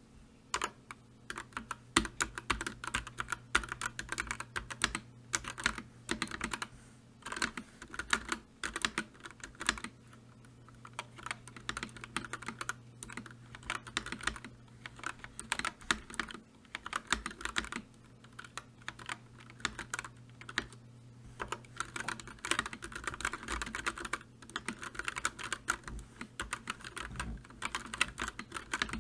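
Typing on a computer keyboard: rapid clicking keystrokes in bursts, broken by short pauses.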